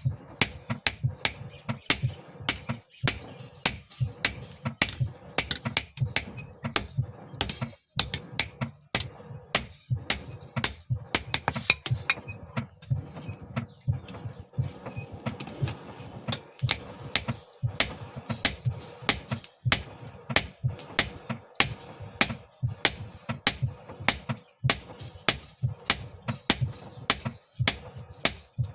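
Hand hammer striking a steel file blank on an anvil as it is forged into a knife: a steady run of sharp metallic blows, about two to three a second, with a few short pauses.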